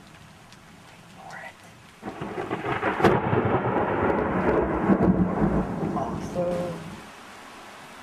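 Thunder from a close lightning strike: a rumble builds about two seconds in, breaks into a sharp crack a second later and rolls on for several seconds, then cuts off near the end.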